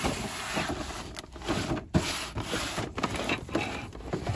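Cardboard toy boxes being shifted and slid on a store shelf and a plastic-bagged action figure pulled out from behind them: rustling with several short knocks, the sharpest about two seconds in.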